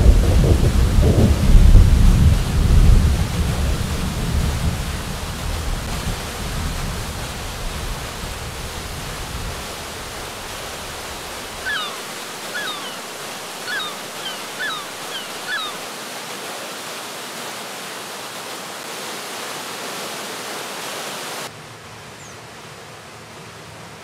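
Floodwater pouring over a river weir: a loud, rumbling rush of water. About twelve seconds in the low rumble drops away, leaving a steady hiss of the fast-flowing swollen river, over which a small bird gives several short downward chirps; near the end it steps down to a quieter, even hiss.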